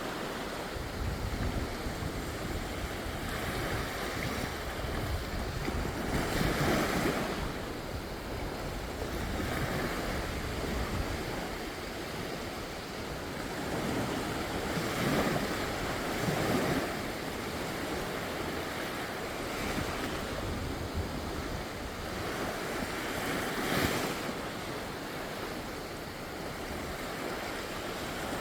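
Gentle, calm waves breaking and washing up on a sandy beach, swelling and falling back every few seconds, with some wind buffeting the microphone.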